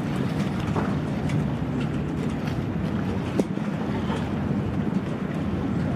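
Engines of a passing motor yacht and jet skis running over the wash of the boat's wake, with wind buffeting the microphone; the sound is steady, with one brief thump about three and a half seconds in.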